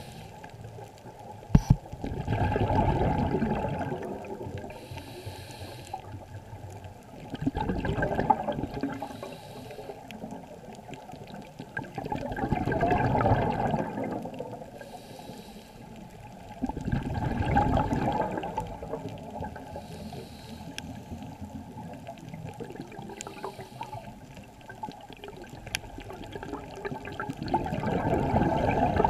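A scuba diver's exhaled bubbles surge and rush past an underwater camera housing, a loud burst every few seconds in time with the breathing and a low steady water noise between. There is a single sharp click a little over a second in.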